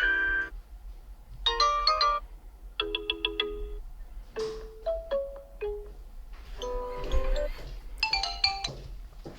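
OnePlus 11 default ringtones and notification tones playing: a string of short electronic chimes and jingles, about six in all, each a few bright notes or a chord, with brief pauses between them.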